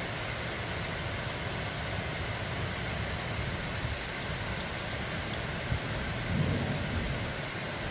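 Steady rain. A brief low rumble swells about six seconds in.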